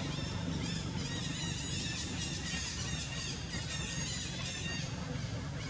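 Infant long-tailed macaque squealing: a run of short, high-pitched cries that rise and fall, several a second, over a steady low hum.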